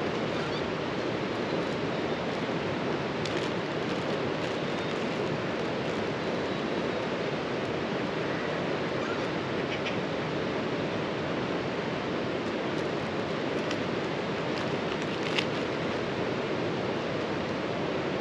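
A swollen river rushing steadily, running high after recent rain. A few faint clicks sit on top, with one sharper click about fifteen seconds in.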